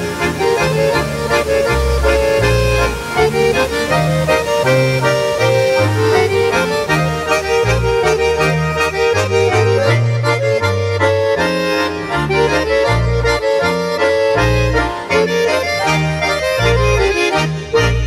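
Background accordion music in Swiss Ländler folk style, a lively melody over a bass that moves note by note.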